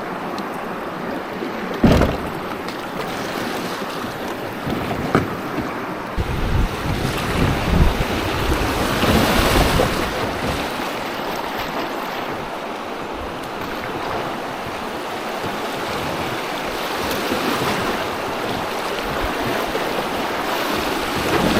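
River water rushing and splashing around a kayak running through shoals, with wind buffeting the microphone. There is a sharp knock against the boat about two seconds in and a louder surge of water noise near the middle.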